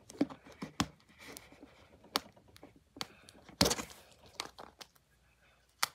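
Scissors point picking and scraping at the shrink-wrap and plastic shell of a toy capsule ball. Scattered clicks and scrapes, with a short crinkle of plastic wrap a little past halfway.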